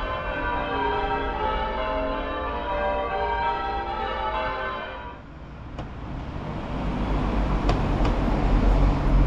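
Church bells of St Mary's Church, Painswick, ringing changes, many bells sounding one after another in a rapid, overlapping peal. About five seconds in, the bells cut off and give way to a steady low rumble and hiss.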